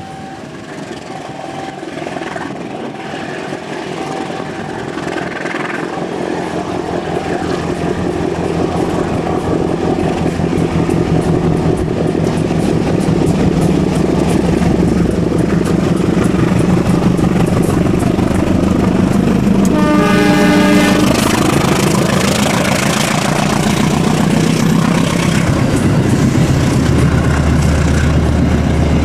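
CC 203 diesel-electric locomotive's engine working hard as it pulls away from a station and approaches, growing steadily louder while pouring out thick black smoke. About two-thirds of the way through it gives one horn blast of about a second, and near the end the coaches pass with wheels clacking on the rails.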